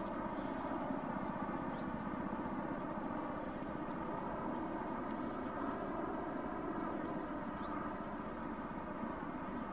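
Steady mechanical hum with several steady tones over a low rumble, unchanging throughout.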